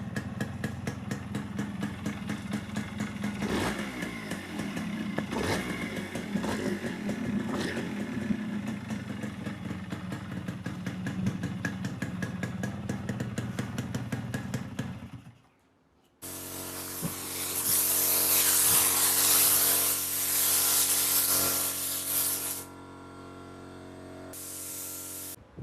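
Yamaha RX100's single-cylinder two-stroke engine running at idle with a few brief throttle blips, on fuel with extra two-stroke oil mixed in. About fifteen seconds in it cuts off, and after a short gap a loud steady hiss runs for about six seconds, then drops to a quieter hum.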